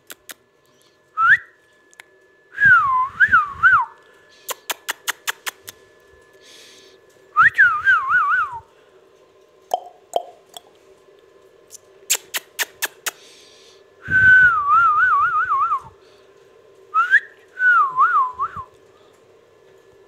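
Indian ringneck parakeet whistling a short warbling phrase over and over, each time gliding up and then wavering down in pitch. Between the phrases come quick runs of sharp clicks, several a second.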